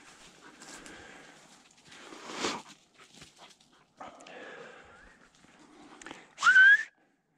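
Footsteps and brushing through dry leaf litter and twiggy undergrowth, with a louder swish of branches about two and a half seconds in. Near the end comes a short, loud, rising whine from a hunting dog.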